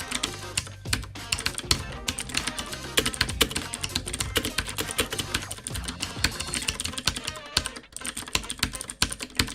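Fast typing on a Tt eSports Poseidon Z mechanical keyboard with Kailh blue switches: a dense run of clicky keystrokes, with a short break about eight seconds in.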